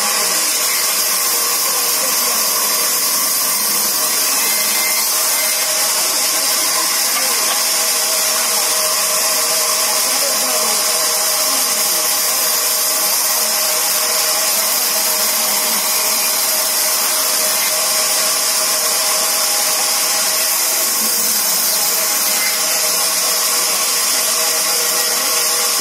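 Large vertical band saw mill running steadily while its blade rips through a log. It makes a constant high hiss over a steady hum.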